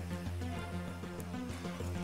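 Background music with a steady bass line and short repeating notes.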